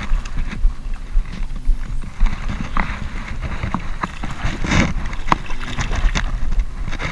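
A small hooked barracuda thrashing and splashing at the water's surface beside a plastic kayak, with irregular knocks on the hull and a bigger splash about five seconds in.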